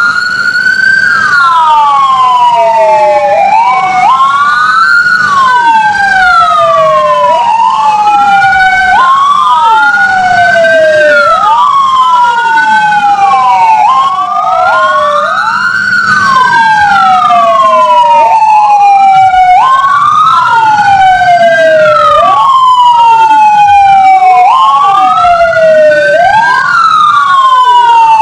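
Several police sirens wailing together, rising and falling out of step with one another, loud and continuous. They are sounded to mark the moment of the independence proclamation.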